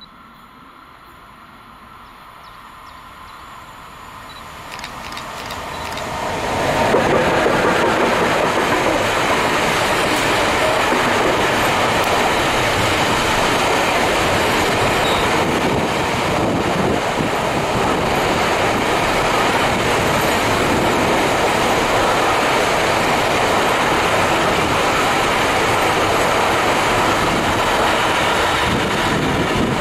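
Container freight train approaching and passing close by. The noise builds over the first six or seven seconds as the train nears. It then settles into the steady rolling rumble of the loaded container wagons going past on the rails.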